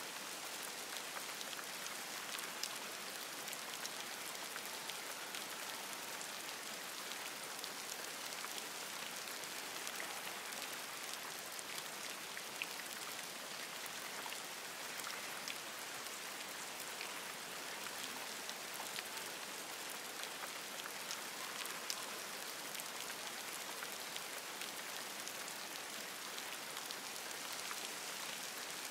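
Steady rain falling on forest leaves, an even hiss with many close individual drops ticking sharply.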